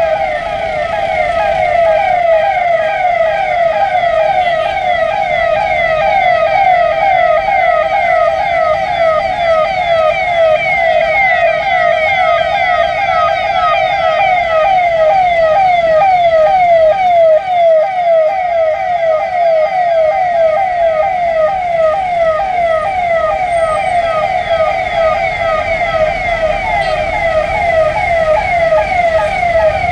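Police vehicle electronic siren sounding continuously in a fast yelp, a falling tone repeating about four times a second, from the roof-mounted loudspeakers of a slow-moving police jeep convoy.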